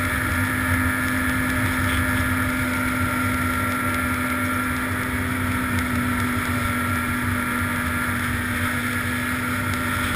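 Snowmobile engine running steadily at cruising speed, a constant drone with a little wind buffeting the microphone.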